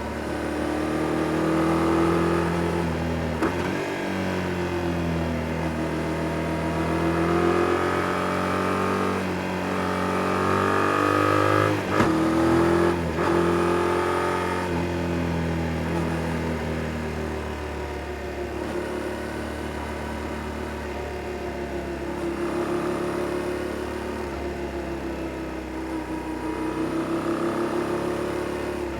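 Yamaha Tracer 7 GT's 689 cc parallel-twin engine through its stock exhaust, accelerating and easing off again and again as it rides through bends, its pitch rising and falling. A few sharp clicks stand out, the loudest about twelve seconds in.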